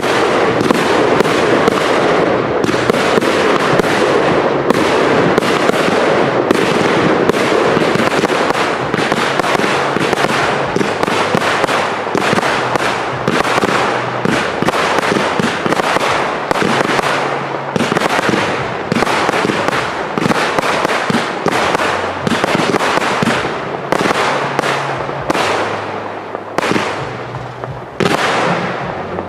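Fireworks cakes (multi-shot batteries) firing a rapid, continuous barrage of bangs and crackling bursts. Toward the end the shots come a little further apart and the loudness eases slightly.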